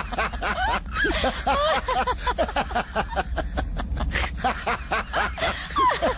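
Voices snickering and chuckling, short bursts of laughter that run on through the stretch.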